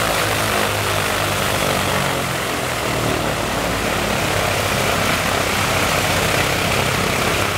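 The right engine of an Ilyushin Il-14T, a Shvetsov ASh-82T radial, running steadily with its propeller turning, after its second start.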